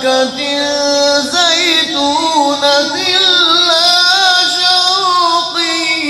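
A man's voice in melodic Quran recitation (tilawat), drawing out long held notes with wavering ornaments and moving to a new phrase about a second in.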